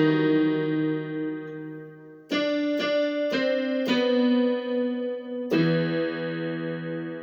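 Electronic keyboard with a piano voice playing a slow phrase: a held chord fading away, four notes struck about half a second apart, then a final chord left to ring and die away.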